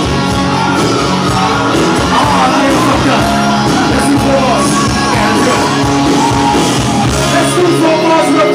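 Loud live hip-hop freestyle through a club PA: a DJ's backing track with a steady bass line, and a rapper shouting and rapping over it on a handheld microphone.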